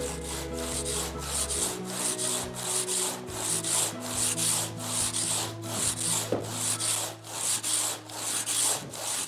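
Handsaw cutting through a stone wall in steady back-and-forth strokes, about two to three a second, a rasping hiss on each stroke. The blade is going through the stone easily.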